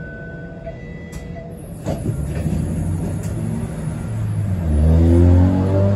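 A TTC streetcar rumbling along the rails, growing louder from about two seconds in, with a knock as it comes near. Music comes in over it near the end.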